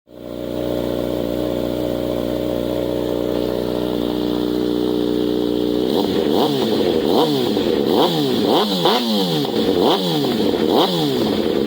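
600 cc inline-four sport bike engine through an M4 aftermarket exhaust, idling steadily, then about six seconds in revved in a rapid string of throttle blips, the pitch shooting up and falling back over and over.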